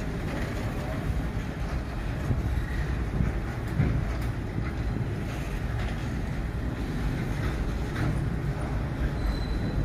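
Freight train of loaded flat wagons rolling slowly past close by: a steady low rumble of steel wheels on the rails, with a few short clanks.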